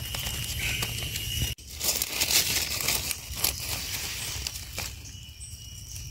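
Dry leaf litter crackling and rustling as a red-capped Russula mushroom is handled and its stem base scraped clean with a small knife. There is a brief dropout about a second and a half in, then a louder stretch of crackling and clicks that settles after about three seconds.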